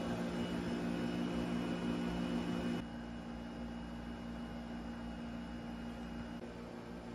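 Steady machine hum with a faint hiss and a few held low tones, stepping down in level about three seconds in.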